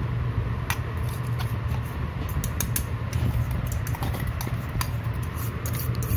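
Scattered light clinks and scrapes of a spoon against a steel bowl as ground chana dal powder is handled, over a steady low hum.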